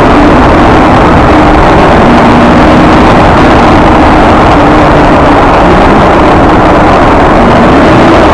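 A car's exhaust and engine heard from inside the cabin while cruising through a road tunnel: a loud, steady drone with a low hum that wavers slightly in pitch.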